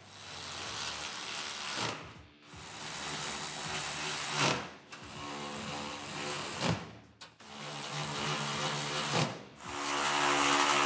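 Cordless drill driving the bolts along the seam of an aluminium roof, in five runs of about two seconds each, each one winding down as the trigger is let go.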